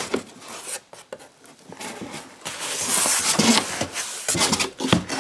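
Cardboard box being handled: the flaps and sides rubbing and scraping, with a few knocks near the end.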